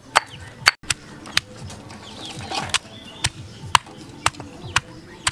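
Stone pestle pounding red shallots in a stone mortar: sharp knocks roughly twice a second, pausing for about a second in the middle.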